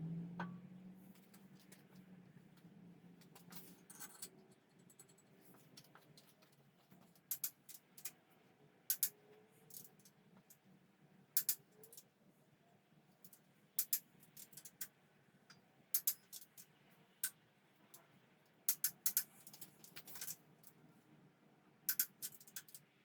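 Sharp metallic clicks and clinks of hand tools and parts, singly and in quick clusters every second or two, faint between them: work on a Chrysler 318 V8 engine during assembly.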